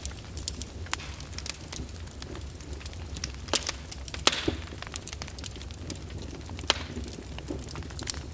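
Fire crackling in a fireplace: irregular sharp pops and snaps over a steady low rumble, with a few louder pops around the middle.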